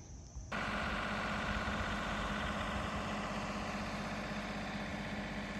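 John Deere compact tractor engine running steadily at an even speed, cutting in about half a second in.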